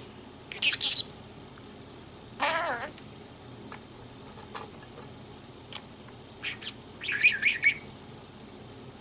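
Budgerigar calling in short bursts: a high chirp about half a second in, a wavering warbled call about two and a half seconds in, and a quick run of chirps near the end.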